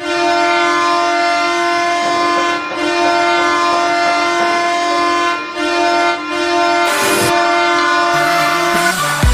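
Ottawa Senators goal horn, a recording of a loud, steady air horn sounding in long blasts with two brief breaks, signalling a goal.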